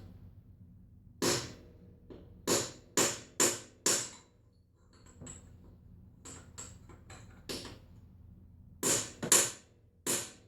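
Hammer smacks on a tool seating a Helicoil thread insert in a riding mower's spark plug hole. A quick run of sharp taps comes first, lighter taps follow around the middle, and three more hard strikes land near the end.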